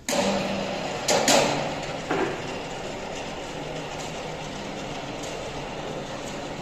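Steady loud rushing noise of industrial machinery with a low hum, starting suddenly; sharp knocks come about a second in and again around two seconds.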